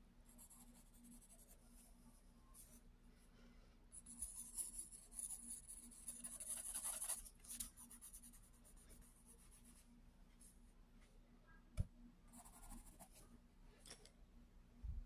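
Pencil scratching across sketchbook paper in short shading strokes, loudest from about four to seven seconds in. A sharp tap comes near the twelve-second mark, and a dull thump right at the end.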